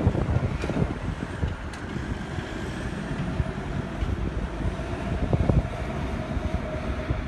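Idling road vehicles, among them a double-decker bus, with wind rumbling on the microphone. A faint steady hum comes in about three seconds in.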